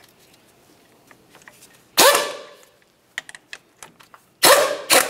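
Pneumatic air ratchet running in two short bursts as it snugs the brake caliper slider pin bolts, about two seconds in and again near the end, with a few light clicks between.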